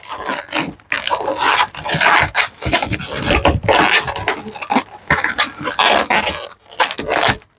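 Long latex twisting balloons squeaking and rubbing against one another as they are handled, twisted and attached together, in a dense run of rubbery squeaks and scrapes.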